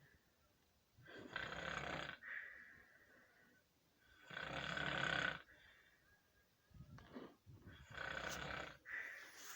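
Loud snoring: long snores about three seconds apart, coming shorter and closer together near the end, with a faint high whistle trailing some of them.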